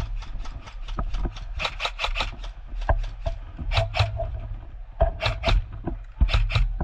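Airsoft rifle firing single shots in quick runs, several shots a second, with short pauses between the runs.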